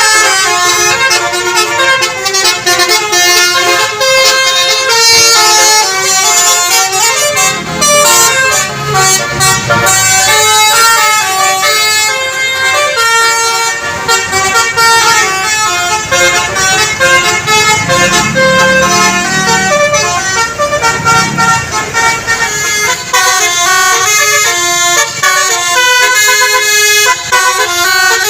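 Basuri telolet multi-tone air horn on a bus playing melodies, a fast run of changing notes that goes on almost without a break.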